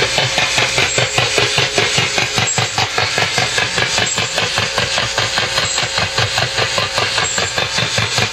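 Shortwave radio receiving a strong pulsed HF signal: rapid, regular tapping at about eight pulses a second over a faint steady tone, like the Russian Woodpecker. The uploader identifies it as a transmission from the HAARP ionospheric research facility.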